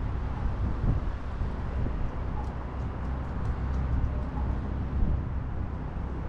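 Steady low rumble of wind on the action-camera microphone mixed with distant road traffic, with a few faint high ticks about halfway through.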